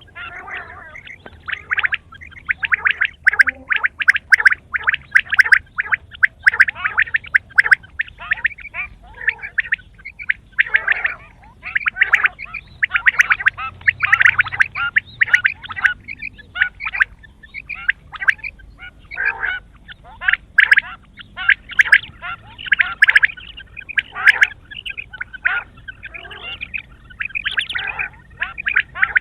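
Quail calling: rapid runs of short, sharp notes, repeated in bursts with brief pauses between them.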